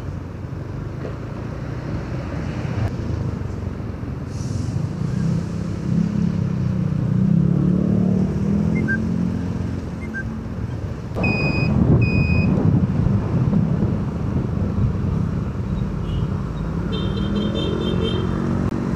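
Motorcycle riding in city traffic: steady engine and road rumble, with the engine note climbing for a few seconds as the bike pulls away. Two short high beeps about a second apart are heard past the middle.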